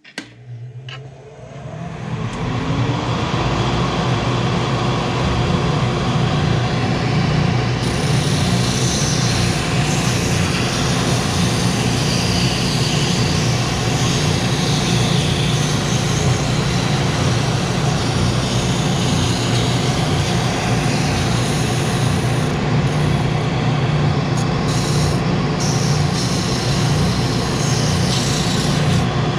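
A benchtop spindle sander's motor starting up, rising to speed over about two seconds, then running steadily while the inside curve of a plywood guitar-shaped speaker body is sanded on the spindle. A higher hiss joins about eight seconds in.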